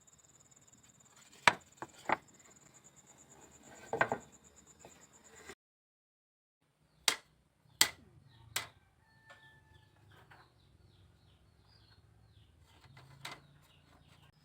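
Sharp knocks and cracks of bamboo being worked by hand, coming singly or a few close together, with a steady high insect trill behind them in the first half.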